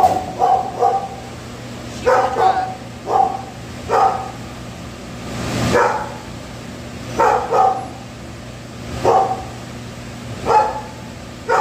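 A dog barking repeatedly, a bark or a quick pair of barks about every second or so, over a steady low hum, with a brief whoosh about six seconds in.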